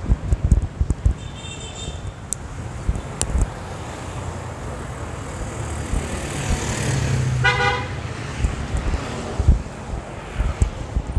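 Street traffic with a vehicle horn sounding once, briefly, about seven and a half seconds in, over the low rumble of passing vehicles and uneven wind buffeting on the microphone.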